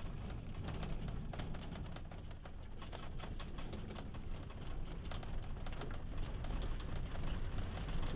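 Rans S6 light aircraft rolling across a rough dry lakebed: a fast, irregular clatter of rattles and knocks from the airframe and landing gear over a low rumble that grows slowly louder.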